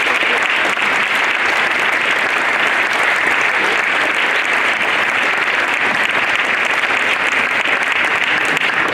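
A school assembly audience clapping, a dense, steady applause.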